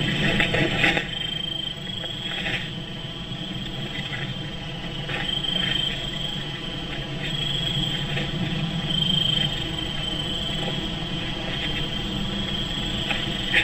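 A steady high-pitched chorus of evening insects chirping, over a low hum. A few short noisy bursts break in, the loudest about a second in and another right at the end.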